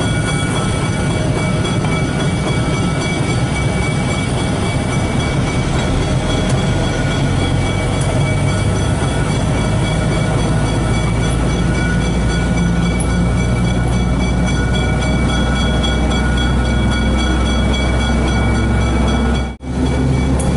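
GE 70-ton diesel-electric switcher locomotive running steadily as it rolls slowly along the track, heard from its front platform: a continuous low engine hum with steady whining tones over it. The sound cuts out for a moment about a second before the end.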